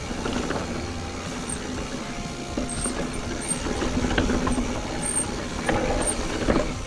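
Mountain bike rolling over rocky trail: tyres rumbling over rock and the bike rattling, with sharp knocks as it hits rocks, the loudest near the end.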